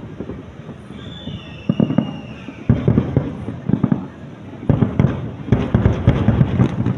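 Fireworks going off in rapid strings of bangs and crackles, densest in the second half, with a thin falling whistle about a second in.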